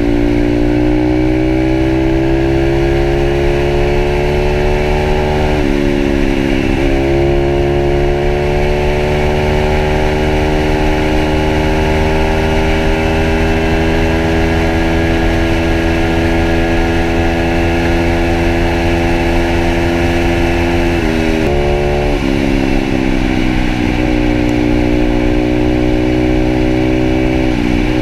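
Pitster Pro 160cc pit bike's single-cylinder four-stroke engine running under way, its pitch climbing slowly as it pulls. The pitch drops sharply and builds again at gear changes, once about six seconds in and several times in the last seven seconds.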